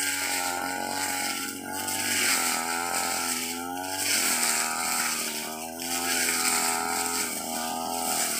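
Stihl backpack brush cutter's two-stroke engine running hard while cutting fern and grass. Its pitch and loudness rise and fall about every two seconds as it cuts.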